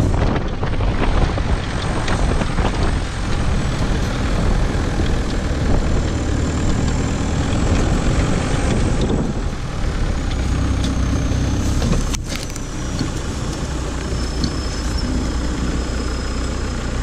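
Engine of a VW Beetle-based off-road buggy running steadily as it drives along a sandy track, with a short knock about twelve seconds in.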